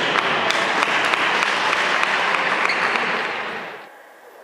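Spectators applauding, a dense patter of hand claps that cuts off suddenly near the end.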